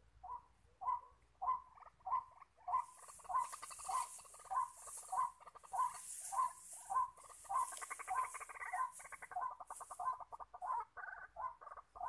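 White-breasted waterhen calling: a steady run of short, croaking notes, about two a second, that grow fuller and more complex about two-thirds of the way through.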